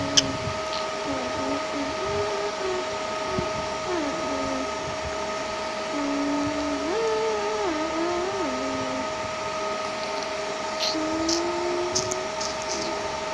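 Steady mechanical hum with several fixed whining tones, under a lower tone that steps up and down between held pitches, and a few sharp clicks near the end.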